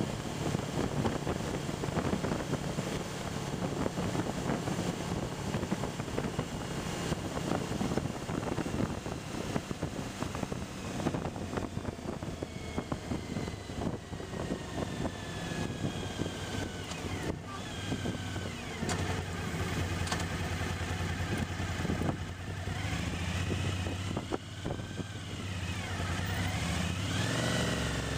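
Suzuki V-Strom's V-twin engine running steadily at road speed, with wind rush over the microphone. Near the end the engine note drops and then rises again as the bike slows and picks up speed.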